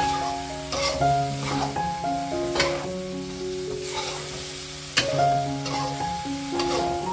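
Metal spatula scraping and stirring fried tofu in chili sauce around a sizzling aluminium wok, in irregular strokes about once a second with a sharp scrape about five seconds in. Soft background music plays throughout.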